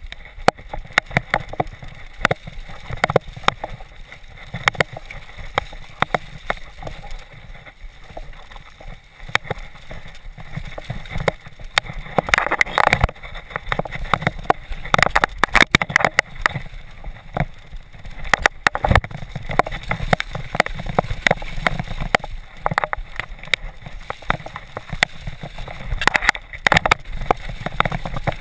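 Specialized Big Hit 3 freeride mountain bike descending a muddy forest trail: a constant clatter of frame, chain and suspension with tyres over mud and roots, broken by many sharp knocks from bumps. The knocks come in thicker clusters three times, the rough sections.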